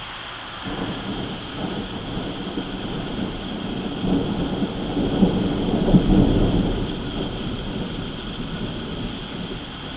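Rolling thunder: a deep rumble that starts about half a second in, builds to its loudest around the middle, then slowly fades.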